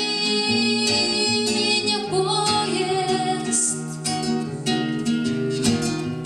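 Nylon-string classical guitar strummed in a steady rhythm, playing chords as a song's accompaniment.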